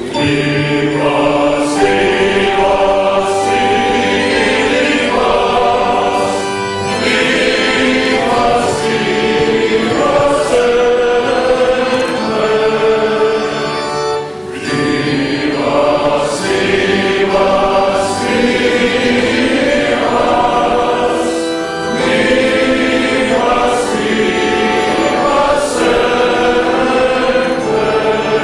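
Mixed choir singing a celebratory song wishing someone a long life, in phrases of about seven to eight seconds with brief breaths between them.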